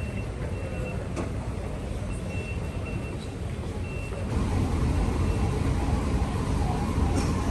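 Low rumble of an Elizabeth Line train, growing louder about four seconds in, with short high electronic beeps repeating on and off over it.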